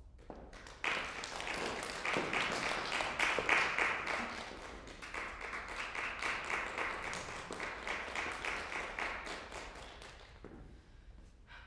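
Audience applauding: dense clapping that starts abruptly about a second in, swells, and gradually thins out and fades near the end.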